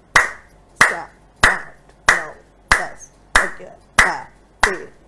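Steady hand clapping, the fingers of one hand striking the other palm about one and a half times a second, each sharp clap followed by a softly spoken count.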